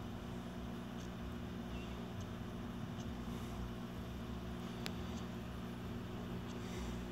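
Steady low electrical hum with faint ticks, and one sharp click about five seconds in.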